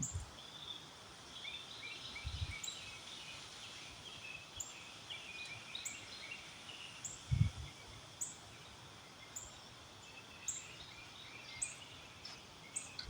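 Outdoor ambience in gusty storm wind: small birds chirping on and off, with a short high chirp repeating about once a second. Two low wind buffets hit the microphone, about two and a half seconds in and again about seven seconds in.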